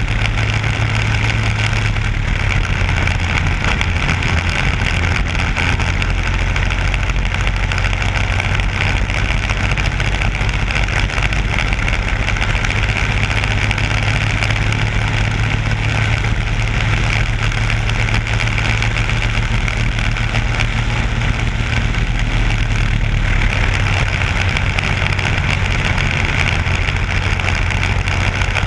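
Briggs & Stratton Animal single-cylinder four-stroke kart engine running at race speed, recorded on board the kart. The engine note holds fairly steady, with small shifts in pitch.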